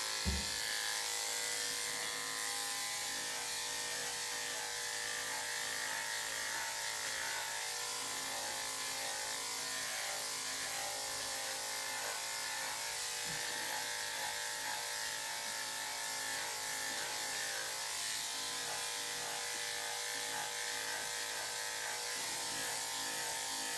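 Corded electric dog clippers running steadily with an even hum as they shave through a heavily matted coat, with a short knock just after the start.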